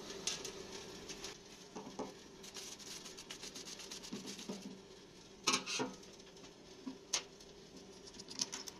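Thin stream of water running from a drinking-water filter faucet into a stainless steel sink as the filter's tank drains. A few sharp clicks of small metal faucet parts are heard, the loudest a pair about five and a half seconds in and another about a second later.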